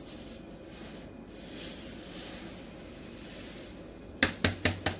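Brown sugar sliding and hissing around inside a metal springform cake pan as it is tilted and turned to coat the buttered sides. About four seconds in, a quick run of sharp taps begins, about five a second, as the pan is knocked to shake the sugar around.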